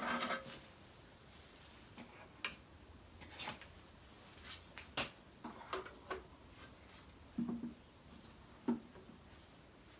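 Scattered light clicks and knocks of the spindle sander's parts being handled: the table insert plate and sanding drum being lifted off and fitted, with the machine switched off.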